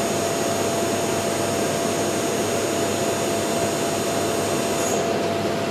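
VMC 600e CNC vertical machining centre running a program with no cut: a steady whir from the spindle and axis drives with a faint steady hum tone. A high whine in it cuts off about five seconds in.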